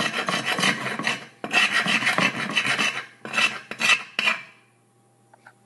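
Metal spoon scraping dried crude caffeine residue off the bottom of a dish in rapid back-and-forth strokes, with a couple of short breaks. It stops a little past four seconds in.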